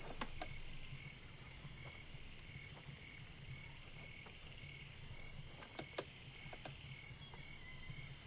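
Crickets chirring in a steady night chorus: a high, finely pulsing trill with a lower pulsing call beneath it.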